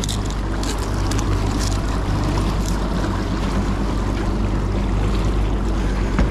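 Outboard motor running steadily with the boat under way, water rushing in the wake and wind buffeting the microphone. A short knock sounds near the end.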